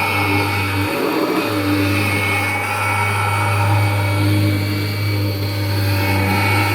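Kirby Generation 4 upright vacuum cleaner running steadily, its motor giving a strong low hum that briefly drops out about a second in.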